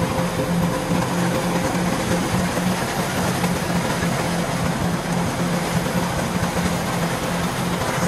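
Kubota DC105 combine harvester running steadily under load, its diesel engine and threshing machinery making a dense whir with a low hum that pulses about three times a second.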